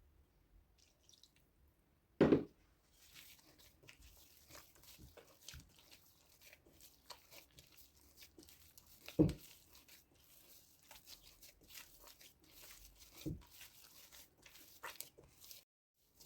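Kahk dough and utensils being handled: a continual soft crackling and rubbing, with three dull knocks, about two, nine and thirteen seconds in.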